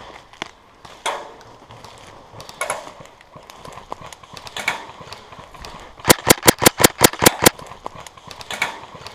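Airsoft rifle firing a quick string of about nine shots, roughly six a second, about six seconds in, after a few scattered rustles and knocks.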